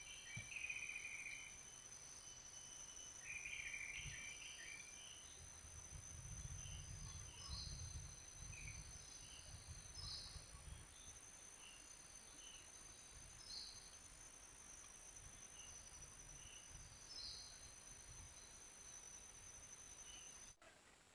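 Faint outdoor ambience of insects droning steadily at a high pitch, with scattered short bird chirps and a soft low rumble that comes and goes. The ambience cuts off abruptly just before the end.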